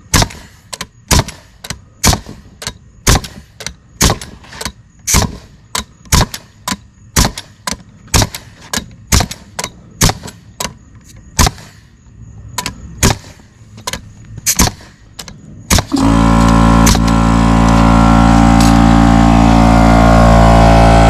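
Paslode F325R pneumatic framing nailer firing nail after nail, about two shots a second. About three-quarters of the way through, a 2 hp, 6-gallon portable air compressor kicks on and runs loudly and steadily, refilling after the tank pressure has fallen. Past the first several shots the pressure is too low and the nailer is not driving the 3 1/4-inch nails fully.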